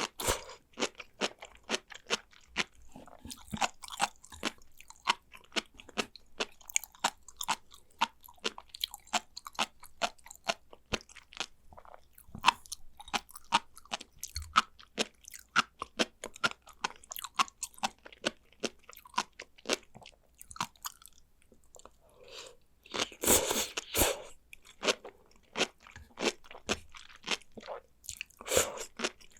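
Close-up chewing of sea grapes, the small bead-like fronds popping between the teeth in quick, crisp clicks, with two louder spells of chewing about two-thirds through and near the end.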